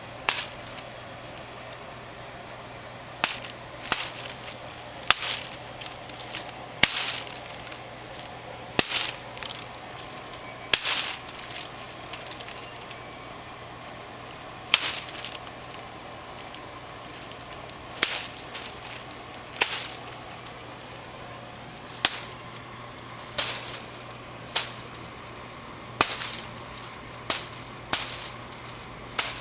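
A basement door striking with sharp knocks, about seventeen of them at irregular intervals one to four seconds apart, some with a brief rattle after.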